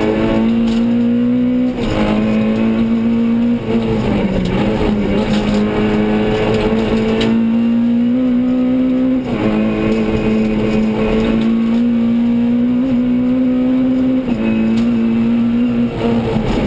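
Renault Clio Sport rally car's four-cylinder engine run hard at high revs, heard from inside the cabin. The engine note holds steady and drops briefly at each of several gear changes, about four in all.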